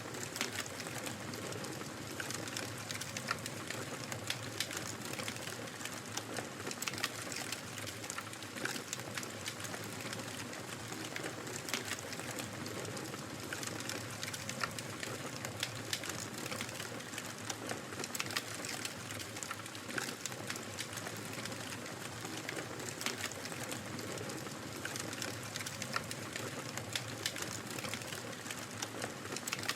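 Wood fire crackling in a fireplace: a steady noisy bed with frequent small, sharp pops and snaps.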